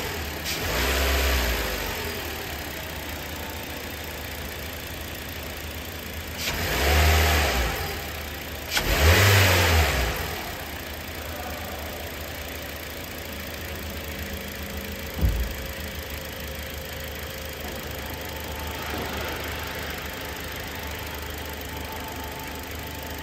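Toyota Corolla's ZR-series four-cylinder petrol engine idling steadily, revved up and back down three times, once near the start and twice in quick succession a few seconds later. A single short knock about fifteen seconds in.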